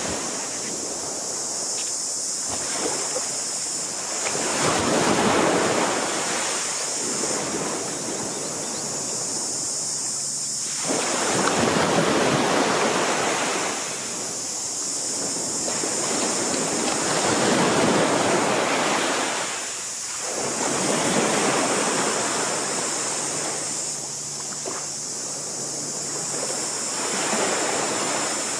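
Waves washing onto a shallow beach, swelling and fading every few seconds, mixed with wind, over a steady high hiss.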